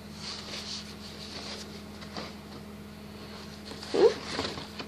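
Faint rustling and small ticks of packaging being handled and opened, over a steady low hum. About four seconds in comes a short, louder voice-like sound.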